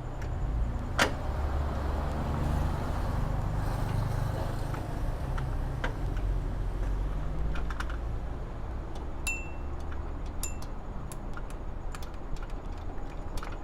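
Scattered sharp metallic clinks of hand tools and bolts during work on the car's AC compressor mounting, the clearest about a second in and a cluster near the end, over a steady low rumble.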